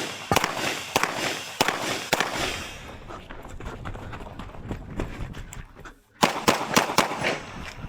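Pistol shots fired in quick strings: several rapid shots over the first couple of seconds, a lull of a few seconds, then a fast burst of about five shots near the end.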